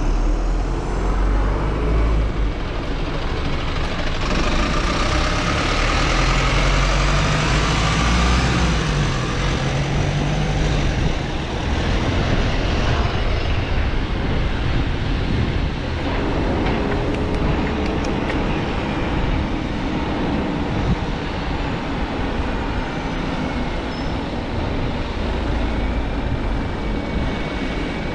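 City road traffic heard from the saddle of a bicycle: motor vehicles running and passing close by over a steady low rumble. An engine's hum rises and falls for a few seconds around a quarter of the way in.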